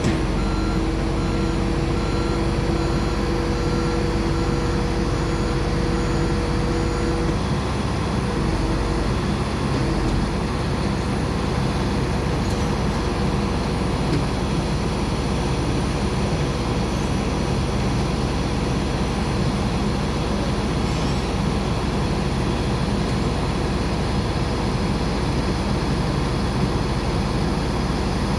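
Air conditioning unit for a Boeing 737 running with a loud, steady rushing drone. Two steady hum tones in it drop out about seven seconds in, and the drone carries on.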